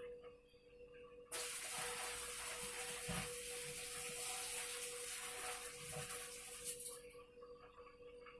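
Water poured out of an electric kettle into a sink: a steady splashing stream starts about a second in and stops near the end.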